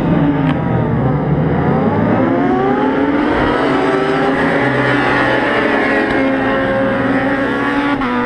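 A pack of racing sportbikes going past at high revs, many engines sounding at once, their pitches overlapping and climbing as the riders accelerate through the gears.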